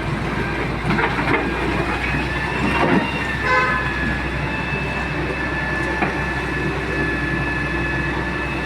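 Excavator running steadily at work, with a high, steady whine over the engine drone. A vehicle horn toots briefly about three and a half seconds in.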